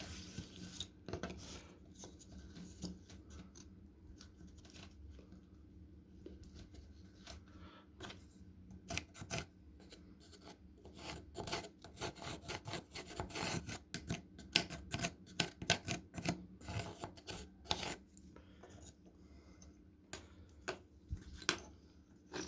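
Short, irregular scraping and rubbing strokes from abrasive hand work on a rusty knife blade. They come thicker and louder from about eight seconds in.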